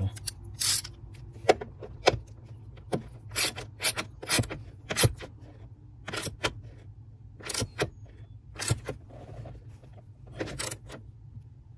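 Socket ratchet wrench tightening a bolt: short bursts of rapid ratchet clicking, one with each back-stroke, coming in irregular runs about half a second to a second apart.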